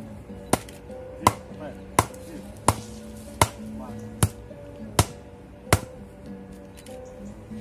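A wooden stake being driven into the ground by blows from a short log used as a mallet: eight sharp wood-on-wood knocks, about three every two seconds, stopping about six seconds in. Background music plays underneath.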